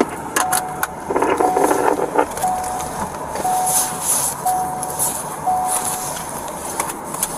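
A car's dashboard warning chime beeping about once a second at one steady pitch, six even beeps, with a few clicks near the start and a burst of rustling noise about a second in.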